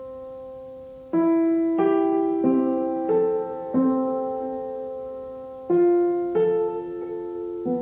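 Slow, gentle background piano music: notes and chords struck a little over half a second apart, each ringing and fading away, with one chord held for about two seconds in the middle.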